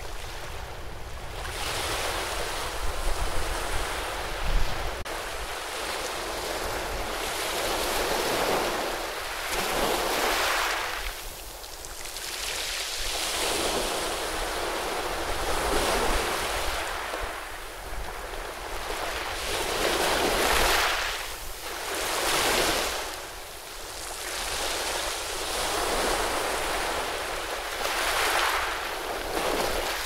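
Ocean surf breaking and washing over a rocky shore, swelling and ebbing every few seconds. Wind rumbles on the microphone now and then, strongest a few seconds in.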